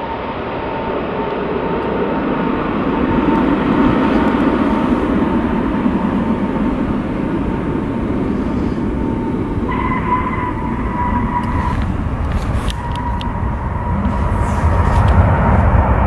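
Twin-engine jet airliner landing: a steady roar of its engines with a thin whine, swelling louder over the first few seconds and building into a low rumble near the end.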